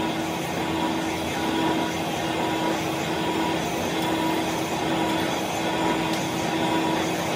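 Workshop machinery running steadily: an even mechanical noise with a constant hum and no knocks or changes.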